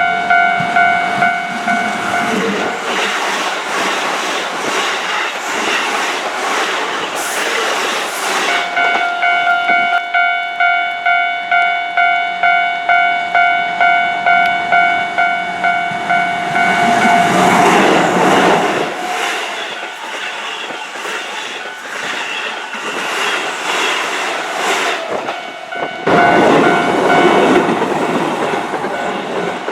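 Japanese railway level-crossing warning bell ringing in rapid electronic pulses, about two a second. Keihan trains rumble and clatter over the rails through the crossing, drowning out the bell from a few seconds in until about eight seconds, again around 17 to 19 seconds, and once more near the end.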